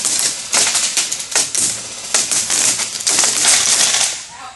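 Airsoft guns firing in rapid, irregular bursts of sharp clicks and rattling clatter, tailing off near the end.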